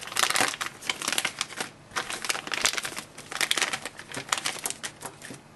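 Crinkling packaging around a small remote accessory being handled and opened, in irregular bursts of rustling that stop just before the end.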